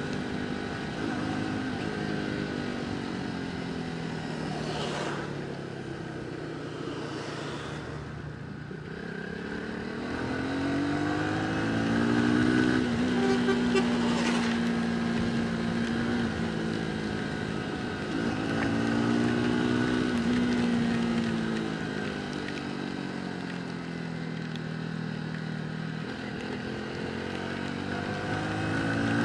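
A motorcycle engine running under way, its pitch falling and climbing several times as the throttle opens and closes.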